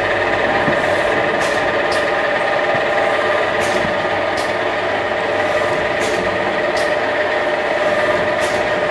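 Medical tape log-roll cutting machine running: a steady motor hum with a constant whine as the tape log spins, with brief faint hissy swishes every second or so.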